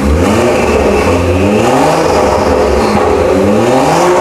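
BMW X6 with an aftermarket quad-tip exhaust, revved repeatedly while standing still: a deep exhaust rumble whose pitch climbs with each blip of the throttle.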